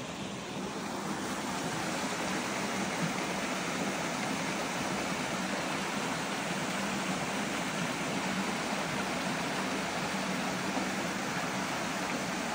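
Steady rush of water in a rocky mountain stream, growing louder about a second in.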